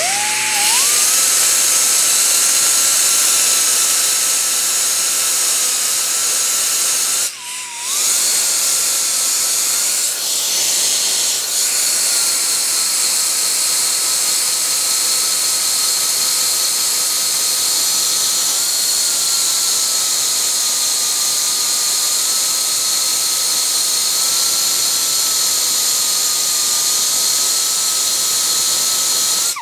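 High-speed grinder running steadily with a high whine over a strong hiss. It spins up at the start, drops off briefly about seven seconds in, comes back up to speed, and stops suddenly at the end.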